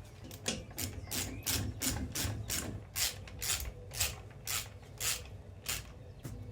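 Ratchet wrench clicking in short, even strokes, about three a second, as nuts or bolts are run down.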